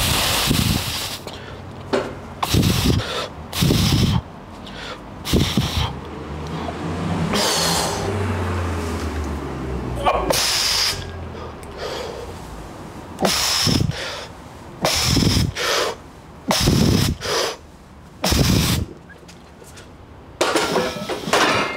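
A man's forceful breathing through a set of heavy barbell back squats: short, sharp breaths and blown-out exhales that come irregularly every second or two, with a longer, strained breath in the middle of the set.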